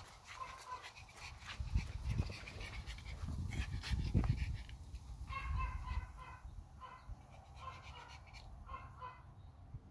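Small dog, a Pomeranian, panting as it trots about, with irregular low thumps. In the second half a series of short, high calls repeats about once a second.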